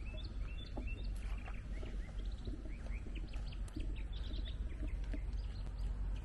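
Songbirds chirping: many short, quick, rising chirps, over a steady low rumble.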